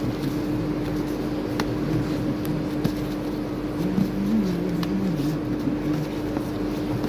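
Steady mechanical hum, like a ventilation fan or kitchen machine running, with a few light clicks and a faint voice in the background about four seconds in.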